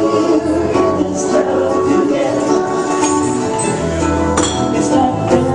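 Small live band playing, with strummed acoustic guitar and ukulele over a bass line.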